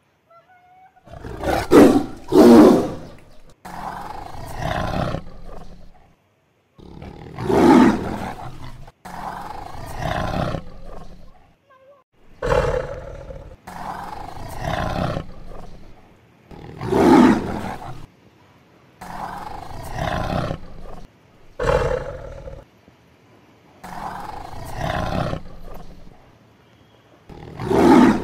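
Tiger roaring over and over, about ten calls one every two to three seconds, loud short roars alternating with longer, quieter ones.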